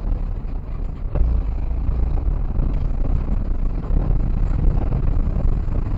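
Rally car's engine running, heard from inside the car, with rattling in the cabin. A single knock comes about a second in, and the sound grows a little louder after it.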